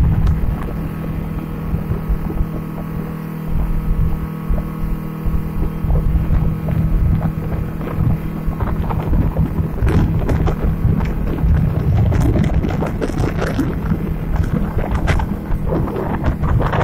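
Outboard motor running steadily at speed, a constant engine drone with wind buffeting the microphone and water rushing past in the wake. From about ten seconds in, splashing spray crackles over it.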